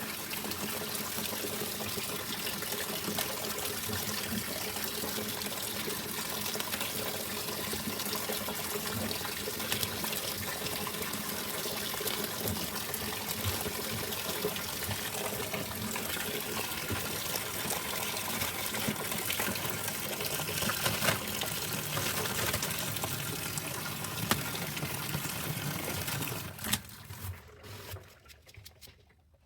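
Steady rush of liquid pouring or running, with a fine crackle through it, that dies away near the end.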